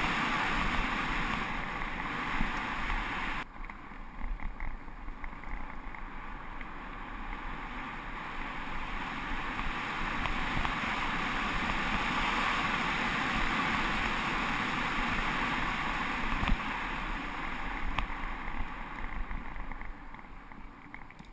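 Wind rushing over a bike-mounted action camera and tyres rolling on a gravel road during a downhill ride, with small irregular rattles and knocks from the rough surface. The sound turns duller suddenly about three and a half seconds in, and it eases off near the end.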